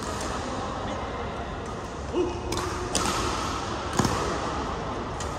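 Badminton rally: sharp cracks of rackets hitting the shuttlecock, three times in the second half, the loudest about four seconds in as a player lunges. A short shoe squeak on the wooden court comes about two seconds in, over voices from the hall.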